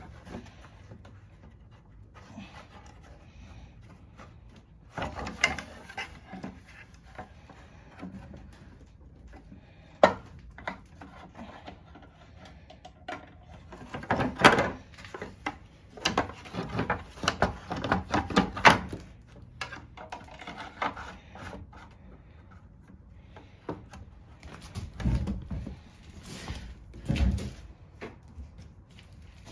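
Scattered clicks, knocks and rubbing of parts being handled and fitted as a cover is put back on a lawn mower, with a few duller thuds near the end.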